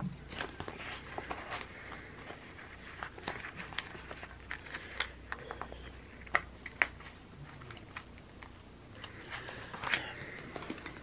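Paper sticker sheets being handled and shuffled on a tabletop: soft rustling with scattered light clicks and taps, two sharper taps a little past the middle and a brief burst of rustling near the end.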